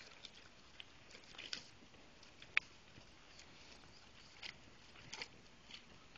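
Faint, irregular light clicks and crunches from a small dog walking in a wheeled dog wheelchair, one sharper click about two and a half seconds in.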